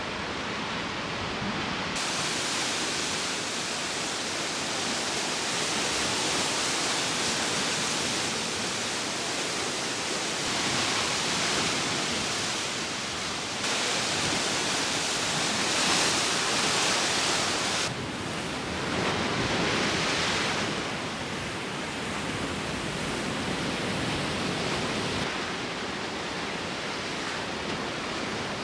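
Sea surf breaking and washing over rocks: a steady rushing that swells and ebbs, and changes abruptly a few times.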